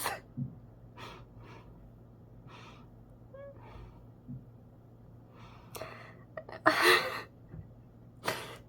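A man crying: shaky breaths and sniffles with no words, and a loud gasping sob about seven seconds in, followed by another sharp breath near the end.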